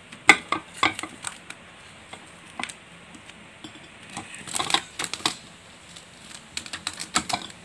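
Cling wrap crackling and crinkling as it is stretched and pressed over the rim of a bowl, in irregular clusters of sharp clicks.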